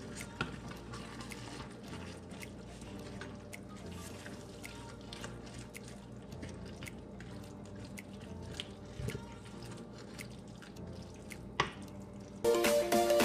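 Ground-meat sauce with spinach sizzling in a stainless steel pan while a wooden spatula stirs it: scattered small pops and light scraping. Loud background music starts suddenly near the end.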